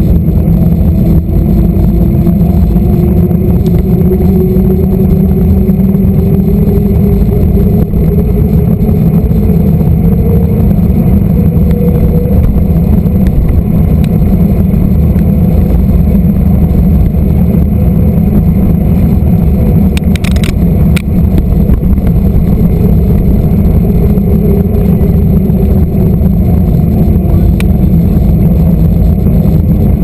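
Loud wind buffeting on the camera microphone and bicycle tyres rumbling on asphalt while riding along a road, with a faint hum slowly rising in pitch and a few brief clicks about two-thirds of the way through.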